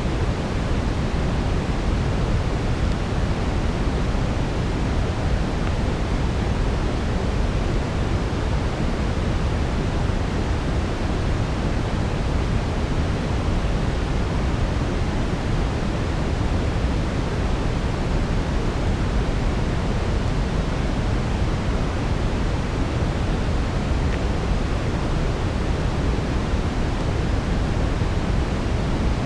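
Steady brown noise: an even, unbroken rushing hiss weighted heavily toward the low end, with no distinct crackles standing out.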